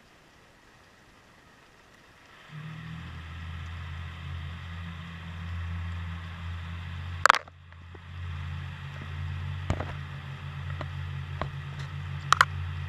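Boat engine running with a steady low hum that comes in about two and a half seconds in. Two sharp clicks or knocks break through it, the louder one near the middle.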